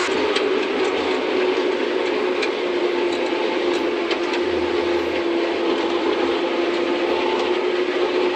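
Harvesting machinery running steadily with a constant hum and scattered light rattles.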